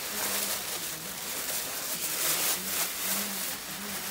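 Tissue paper and plastic wrapping rustling and crinkling as a tote bag is unwrapped by hand, with louder surges of crinkling a few times.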